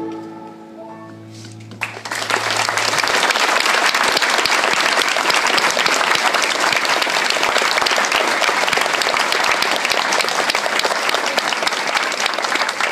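The song's last held notes die away, and about two seconds in an audience breaks into loud, steady applause.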